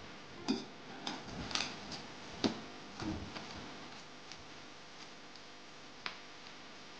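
Stainless steel kitchen utensils being handled: a series of sharp clinks and knocks of metal on metal and on the counter, the loudest about half a second and two and a half seconds in, thinning out to a single knock near the end.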